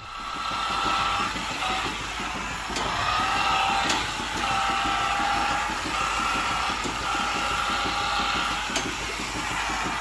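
Motorised handheld teat-cleaning brush whining as it is worked on a cow's teats. Its pitch drops and comes back up several times as it is pressed on and lifted off, over the steady hiss and rattle of milking-parlour machinery.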